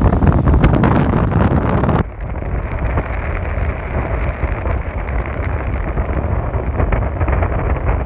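Small surf waves breaking and washing up a sand beach, largely covered by heavy wind buffeting the microphone with a deep rumble. About two seconds in, the sound abruptly turns duller.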